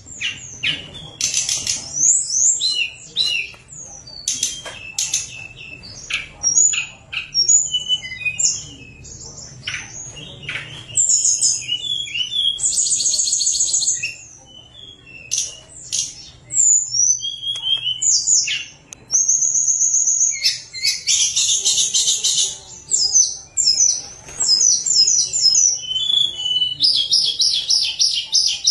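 Caged tledekan gunung singing a long, varied song: high flute-like whistled notes, short trills and fast chattering runs in close succession.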